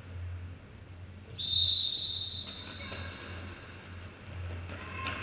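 Referee's whistle: one shrill blast about a second and a half in that rings on and fades over a second or so, heard over a low steady hum.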